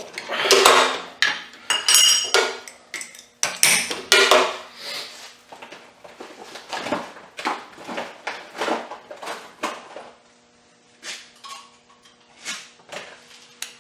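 Metal tooling clinking and rattling as an end mill is swapped out on a milling machine: a dense run of sharp clinks and knocks for the first few seconds, then sparser ones.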